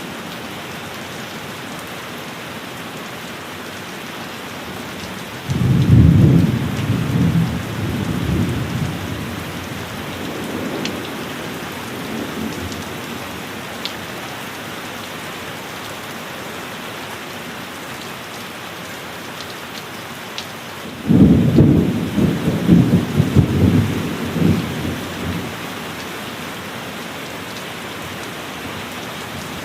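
Heavy rain falling steadily, with two rolls of thunder: one breaks suddenly about five seconds in and another about twenty-one seconds in, each rumbling for a few seconds before fading back into the rain.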